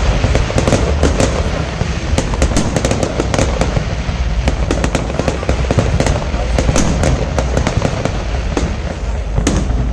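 Fireworks display: a dense, continuous crackling and popping of bursting shells over a steady low rumble, with a stronger crack near the end.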